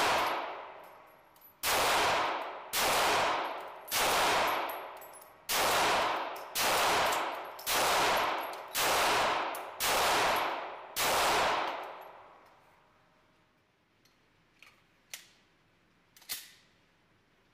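9mm pistol fired nine times at a steady pace, about one shot a second, each shot ringing out with the long echo of an indoor range. A few seconds after the last shot come a few small metal clicks and clacks as the pistol is handled, the last one the loudest.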